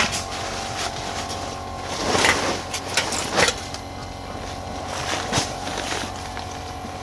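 A small engine running steadily, with a few short scraping knocks of work about two and three and a half seconds in.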